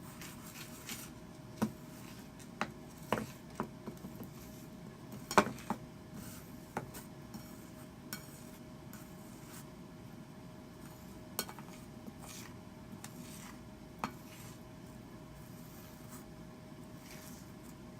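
Slime being scraped out of a container: scattered light clicks and knocks of the scraping, the loudest about five seconds in, growing sparser in the second half.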